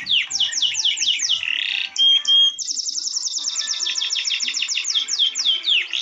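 Soft background music with held notes, overlaid with songbird song: quick runs of high, falling chirps, broken about two seconds in by a short held whistle before the trilling resumes.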